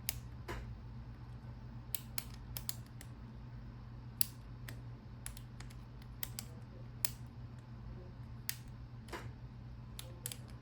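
Master combination bike lock's number wheels clicking as they are turned one detent at a time and the lock is tugged to feel whether the next wheel binds: short, sharp clicks at uneven spacing, about two a second.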